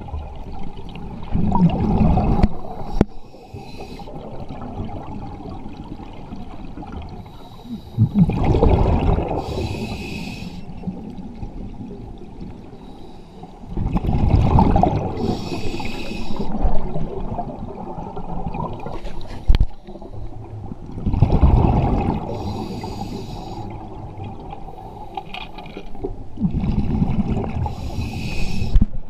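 A scuba diver breathing through a regulator underwater: a rumble of exhaled bubbles and a short hiss of the regulator in each breath, about one breath every six or seven seconds, five breaths in all.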